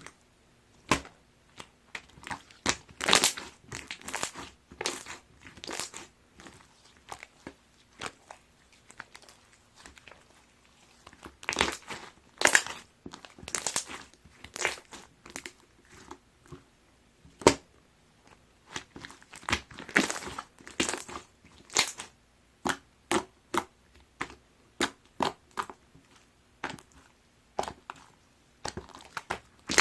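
Jiggly watery slime being squished, poked and pressed by hand: irregular short pops and clicks, some in quick clusters, with brief quiet gaps between them.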